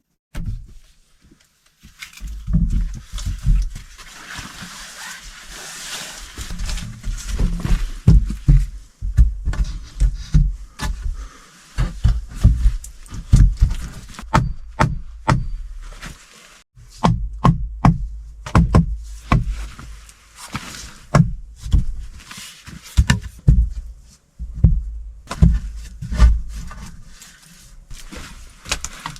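Irregular series of dull knocks and heavy thumps, several a second in bursts with short pauses, with rustling between them.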